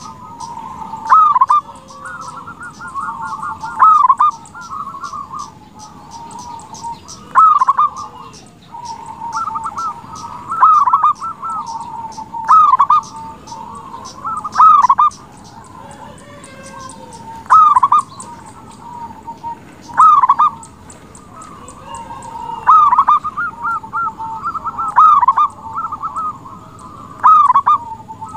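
Zebra dove (perkutut) cooing: a running series of soft, quick cooing notes, broken every two to three seconds by a louder accented call.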